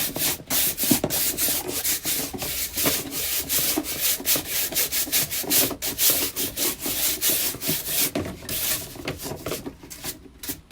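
Rapid, repeated rubbing and scraping strokes, several a second, from lint and dust being scrubbed off in the cramped space behind a dryer. They ease off and grow quieter over the last couple of seconds.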